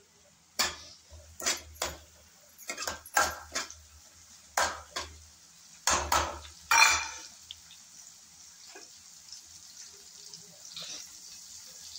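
A cooking spoon knocking and scraping against an aluminium kadhai while chopped spring onions are stirred in oil: about a dozen sharp clanks in the first seven seconds, then they stop. After that only a faint sizzle of the frying is left.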